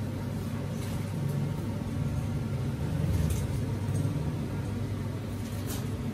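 Steady low rumble of a gas burner under a large wok, with a few light scrapes and clinks of a metal ladle and spatula against the wok as chicken pieces are stirred.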